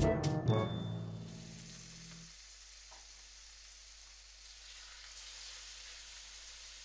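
A held brass music phrase fades out in the first two seconds. Under it and after it, two beef steaks sizzle in butter in a frying pan, a steady hiss that grows a little louder toward the end.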